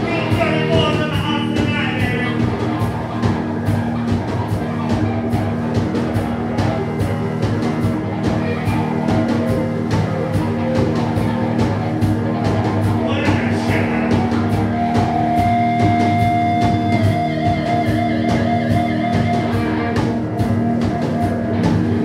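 Rock band playing live: drum kit keeping a steady beat under electric guitar, with short bursts of singing right after the start and about halfway through, and a long held note in the second half.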